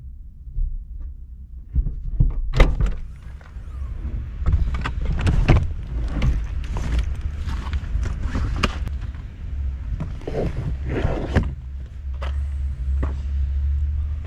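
Suitcases being handled in a car's open boot: repeated knocks, thuds and rustling as the bags are shifted, over a steady low rumble.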